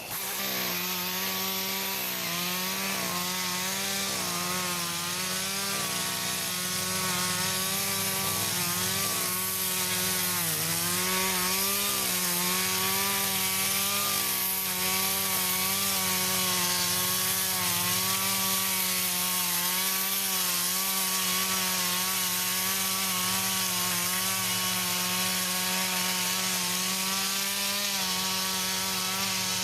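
Echo CS-310 two-stroke chainsaw with a dull chain, running at high revs as it cuts down corn stalks. Its pitch wavers with the load and dips briefly about ten seconds in.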